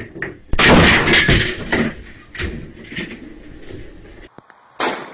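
A shotgun shell going off on a desk: a loud, sudden bang about half a second in, followed by a run of further loud sudden noises, with another sharp bang near the end.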